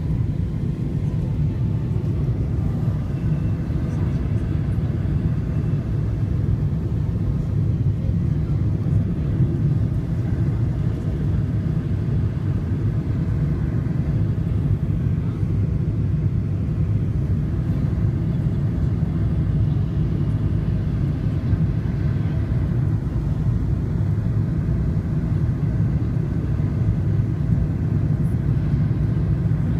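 Steady low rumble of engine and airflow noise inside the cabin of a Boeing 777-300ER airliner descending on final approach.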